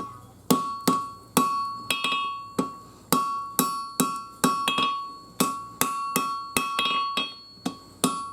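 Blacksmith's hammer striking hot steel on an anvil, about two to three blows a second, each blow leaving a bright ringing tone that fades before the next, while the ricasso is forged into a 5160 steel throwing-knife blank.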